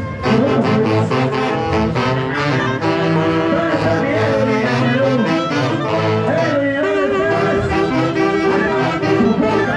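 Andean orquesta típica playing a tunantada, with saxophones and brass carrying a steady, rhythmic melody.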